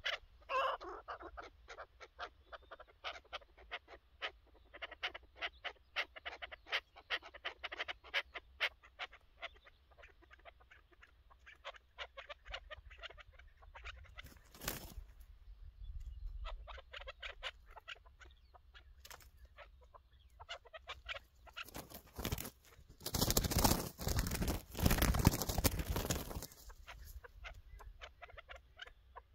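Chukar partridges calling: quick runs of short, repeated clucking notes that come and go. A loud burst of rustling noise lasts a few seconds near the end.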